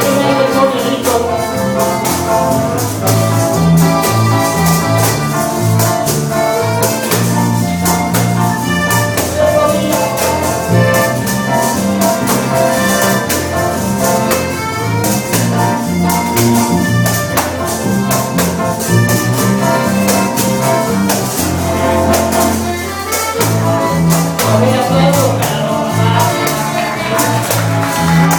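Live band music: a lively polka played on accordion, guitars and bass with tambourine and hand percussion keeping a fast steady beat.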